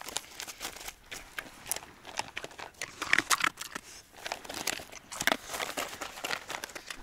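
A mongrel dog chewing and crunching dry kibble from a bowl, with irregular crunches and clicks.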